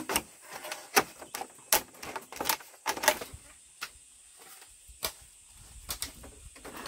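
Bamboo poles knocking and clattering against the bamboo frame as they are fitted into a wall: sharp, irregular wooden knocks, about ten in all, with a quieter gap a little after the middle.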